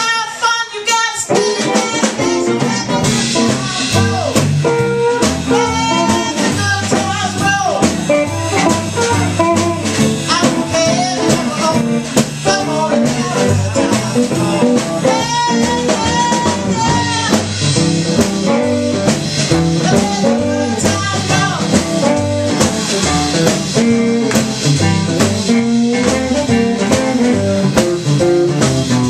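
Live blues band playing: a woman singing over electric guitar, upright bass and drum kit.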